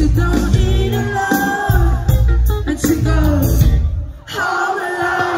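Live band playing loudly, with electric guitar, heavy bass and a woman singing lead. About four seconds in the band stops for a brief break, then comes back in.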